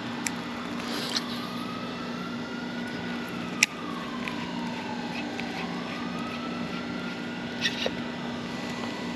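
A distant siren wailing slowly up and down, rising, falling and rising again, over a steady low hum of traffic. A single sharp click comes about three and a half seconds in.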